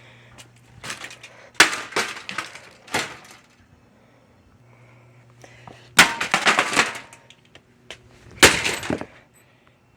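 Brittle plastic of an old Holmes box fan cracking and breaking apart in four bursts of sharp crunching impacts.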